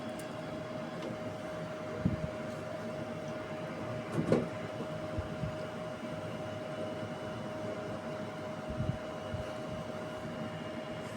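A steady machine hum with a constant tone, broken by a few short knocks about two seconds in, around the middle and near the end.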